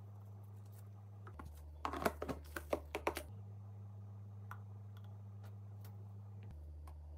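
A quick flurry of light clicks and taps lasting about a second and a half, over a steady low hum that shifts pitch a few times.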